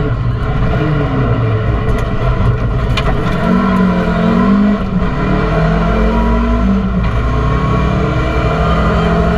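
Rally car engine at full throttle, heard from inside the cabin, its pitch climbing and dropping several times as the car is driven hard through the gears.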